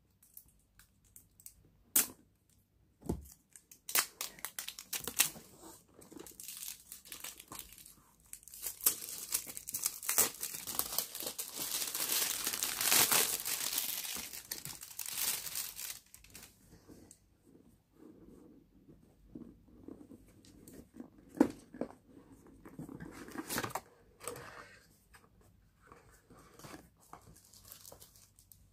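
Scissors snipping at a cardboard box a few times, then a long stretch of packaging being torn and crinkled, loudest about halfway through. Scattered rustling and handling clicks follow as the box is worked open.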